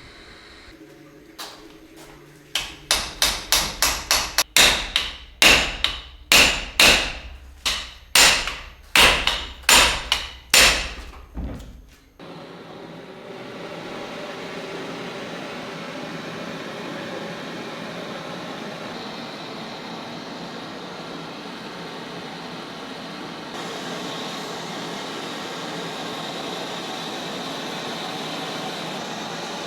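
Hammer blows on metal pistol parts, about fifteen sharp strikes over some ten seconds, each ringing briefly. A steady even whirring noise follows.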